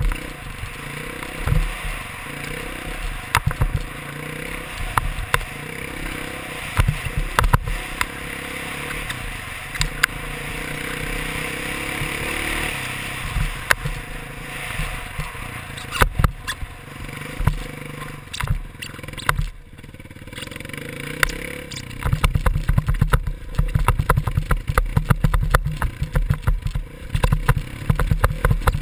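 Dirt bike engine running and revving as it is ridden over a rough dirt motocross track, heard through an action camera mounted on the rider or bike. Sharp knocks and rattles from the bumps come throughout, and the rumble becomes more choppy and insistent from about three-quarters of the way in.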